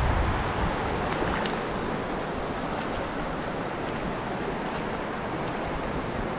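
Shallow mountain stream running over rocks: a steady rushing and gurgling of water, with a little low wind rumble on the microphone at the start.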